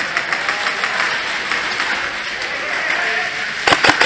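Airsoft rifle firing a quick burst of three or four sharp shots about three and a half seconds in, over a steady din of an indoor airsoft game with faint voices.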